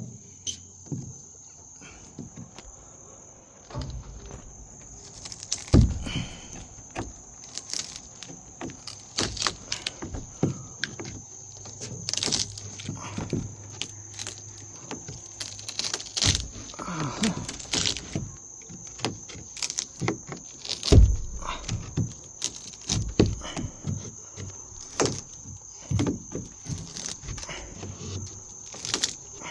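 Steady high-pitched chirring of crickets, with irregular knocks, thumps and creaks of wooden crate boards being pried and hammered loose from their nails.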